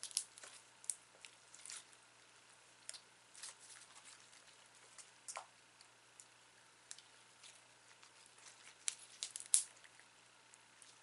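Hands kneading and squishing sticky slime mixed with air-dry foam clay. It makes faint, irregular wet squelches and little crackling pops, with a cluster of louder pops near the end.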